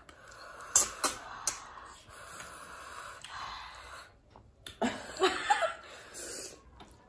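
Sucking and slurping of river snails being drawn out of their shells by mouth, a wheezy, breathy hiss, with three sharp clicks about a second in. A louder burst of slurping about five seconds in carries a brief voiced sound.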